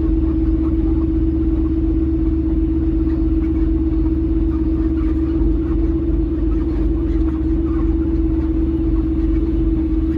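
A semi truck's diesel engine running at low speed, heard inside the cab, with a constant low rumble and a steady hum held on one pitch.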